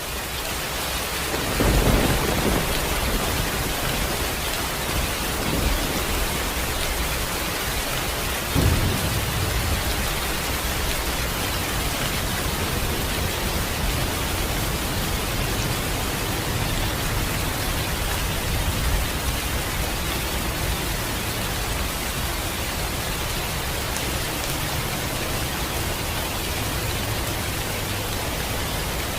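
Steady rain hiss, fading in at the start, with thunder: two louder rumbling claps about two and nine seconds in, and fainter rumbles later.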